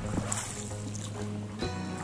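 Background music with steady held notes, with faint sounds of an inflatable boat on the water underneath.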